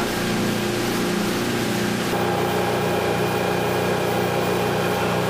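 Motorboat engine running steadily under way, with the constant hiss of water and wind. About two seconds in the sound changes to the engine heard at the stern, over the churning wake.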